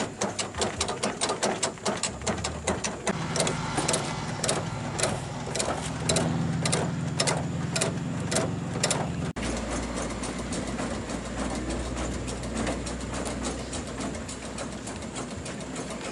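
Scania truck's hand-operated hydraulic cab-tilt pump being worked with a bar, clicking with each stroke about three times a second, over the steady hum of a diesel engine running. About nine seconds in the sound cuts; after that the engine hum carries on with only occasional clicks.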